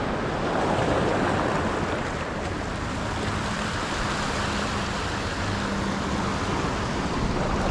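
Small sea waves washing over a rocky shoreline, a steady hiss of surf.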